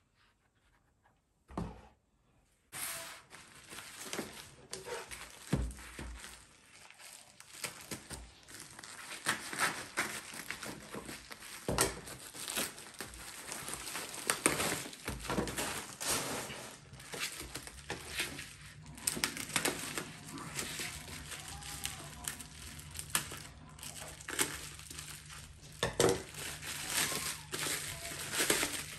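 Plastic packaging and bubble wrap crinkling and rustling as a parcel is cut open with scissors and unwrapped, with sharp snips and crackles throughout. It starts about three seconds in, after near quiet.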